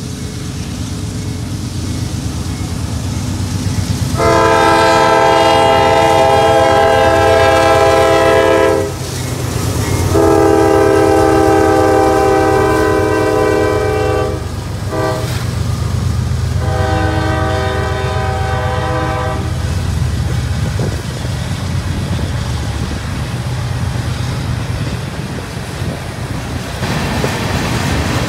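Diesel freight locomotive's multi-chime air horn sounding the grade-crossing signal: two long blasts, a short one and a long one, over the engine's low rumble. Then the freight cars roll past with a steady clatter of wheels on rail.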